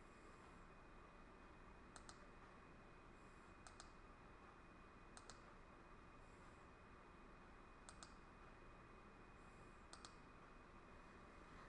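Faint computer mouse clicks, many in quick press-and-release pairs, coming every second or two over a low room hiss.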